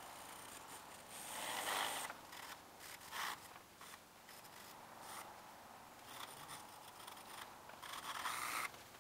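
Pencil hatching on drawing paper: several spells of quick scratchy strokes, the longest about a second and a half in and again near the end.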